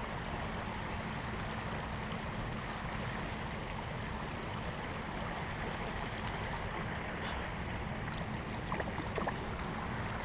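Steady rush of water flowing over the rocks of a shallow stream, with a few faint clicks about nine seconds in.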